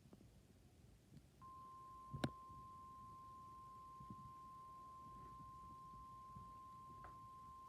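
A single steady tone, the 1050 Hz warning alarm tone of a NOAA Weather Radio alert, comes on about a second and a half in and holds. There is a sharp click a little after two seconds in.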